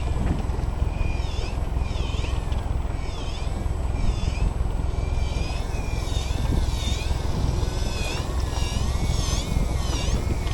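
A flock of gulls calling over a boat: many short, mewing calls that dip and rise in pitch, overlapping one another, over a steady low rumble.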